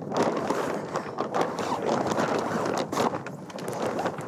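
A jib being hoisted by hand: the halyard is hauled in pull after pull, with an uneven rustle of rope and sail cloth.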